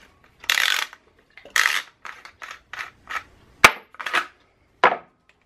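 Parts of a Remington 11-87 semi-automatic shotgun being handled: a string of short metal scrapes and clicks, with one sharp click a little past halfway that is the loudest.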